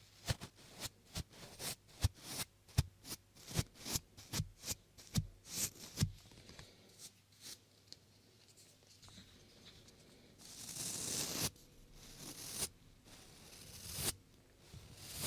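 Close-up scratchy rubbing strokes on a 3Dio binaural microphone's ears: a quick run of short strokes, about two a second, for the first six seconds, then a longer rubbing sweep about ten seconds in.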